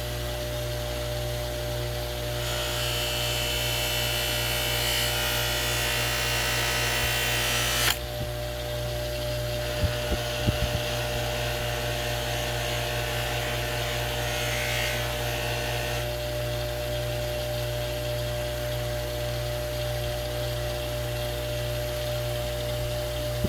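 Bench polishing wheel's motor running with a steady hum, while a pocket-knife blade is held against the cloth buffing mop charged with red jeweler's rouge. This gives a hissing rub that starts a couple of seconds in and lasts about five seconds, then returns more faintly later, as the rouge scrubs rust and corrosion off the blade. A few light knocks come about ten seconds in.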